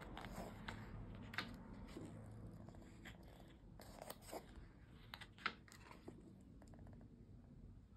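Paper pages of a printed zine handled and turned by hand: faint rustling with a few crisp flicks of paper, the sharpest about a second and a half, four and five and a half seconds in, over a low steady hum.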